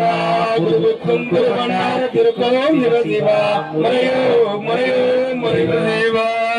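Men singing an Ayyavazhi devotional chant, their voices moving over a steady held note underneath.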